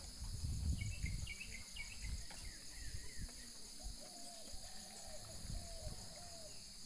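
Steady chorus of crickets and other insects, with birds chirping: a quick flurry of high chirps early on and a run of short, lower calls in the second half. A few faint clicks sound in between.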